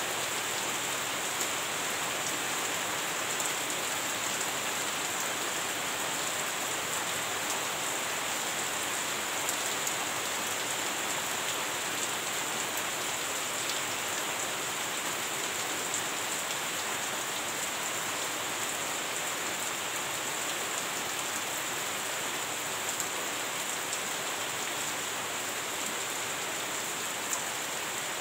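Heavy rain falling steadily: an even, unbroken hiss, with water running and dripping off a roof's edge.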